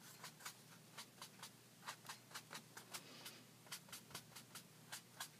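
Sponge dabbing ink onto cardstock: faint, quick taps, about three or four a second.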